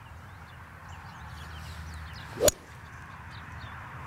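A hybrid golf club striking a golf ball off the grass: one sharp crack about two and a half seconds in.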